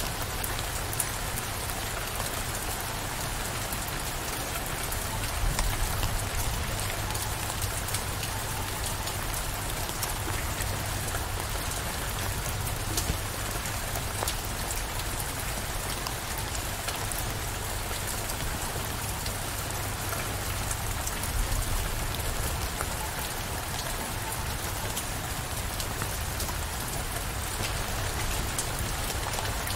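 Steady heavy rain, an even hiss studded with many small drop impacts.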